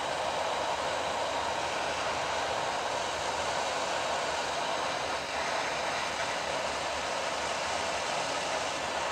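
BAKU 858A hot-air rework station blowing a steady stream of hot air through its nozzle at high airflow, a continuous rushing hiss, while it heats a small surface-mount resistor to desolder it.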